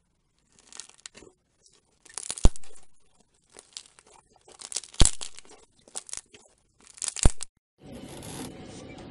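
Fluffy slime stretched and squeezed by hand, crackling and tearing, with three loud sharp pops about two and a half seconds apart. Near the end this gives way to a steady hiss.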